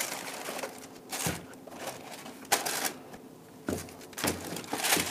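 Unpacking a pair of football boots from a cardboard shoebox: tissue paper rustling and cardboard being handled in short, irregular bursts, with a couple of soft knocks as the boots are lifted out and set down.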